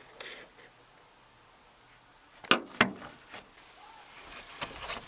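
Two sharp clicks about a third of a second apart, a smaller click after, then rustling and scraping as the nut holding the roof antenna is undone with a socket and taken off.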